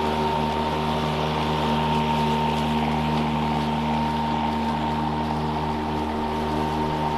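Toro 60V Flex-Force battery lawn mower's electric motor and blade running steadily while cutting grass in mulching mode: an even hum with a thin whine above it.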